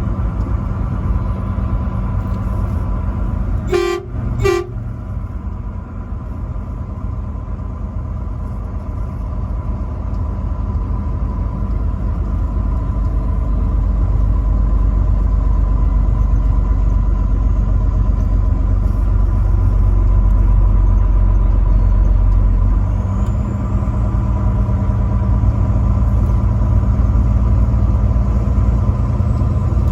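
Truck engine and road drone running steadily and growing louder through the middle, with two short truck horn toots about four seconds in.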